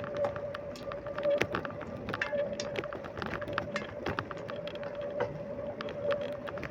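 Bicycle being ridden: a steady hum with frequent small clicks and rattles throughout.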